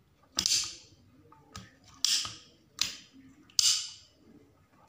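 Motorcycle ignition key switch being turned with its key, its detents snapping in four sharp clicks, the last three in quick succession, with a fainter click between the first two. The repaired lock is working properly.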